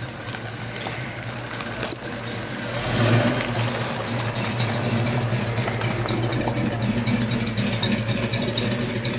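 V8 engine of a Mercury Cougar convertible running at low speed as the car rolls slowly past, a steady low note that grows louder about three seconds in.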